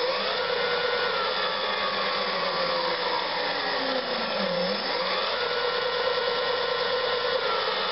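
Turnigy brushless electric motor driving a bicycle's rear wheel through a belt, throttled up twice: its whine rises quickly to a steady high tone, holds for a second or two, then glides slowly down as it eases off, the second rise about five seconds in.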